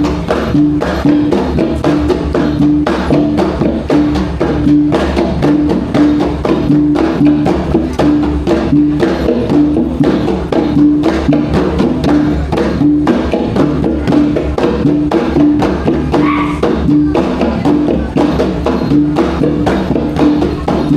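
Iban gendang pampat percussion music: drums and gongs beating a fast, steady rhythm, with one pitched note struck over and over at an even pace.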